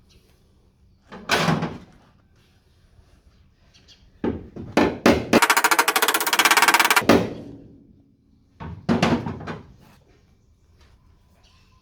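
Bodywork on a Mk2 Ford Escort's steel rear quarter panel: a few short scraping strokes, sharp knocks, and about two seconds in the middle of fast, evenly repeating rattling impacts on the metal, then more strokes.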